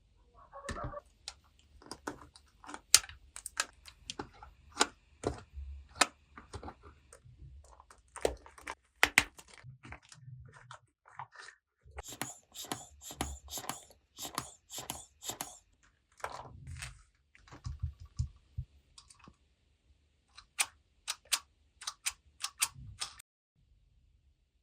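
Small plastic toy pieces handled and set down on a hard surface, giving irregular clicks and taps, with a denser, scratchier run of clicking around the middle.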